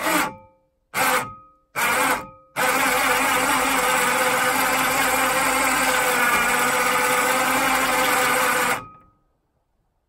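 Battery-powered electric winch on a truck's rear bumper, working the cable of a homemade three-point hitch. It gives three short jogs about a second apart, then runs steadily with a motor whine for about six seconds and winds down near the end.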